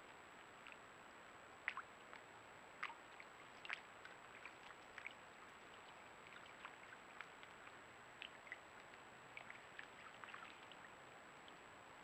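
White-tailed deer wading through a shallow muddy puddle: faint, irregular small splashes and drips from its hooves in the water, over a steady hiss.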